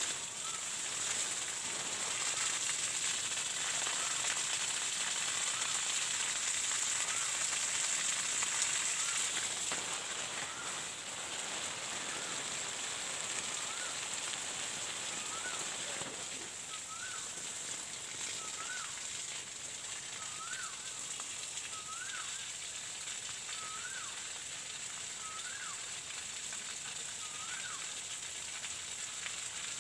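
Water jetting from a garden hose and spattering on leaves and ground: a steady hiss, a little louder in the first third. Over it, a short rising-and-falling chirp repeats about once a second, clearer in the second half.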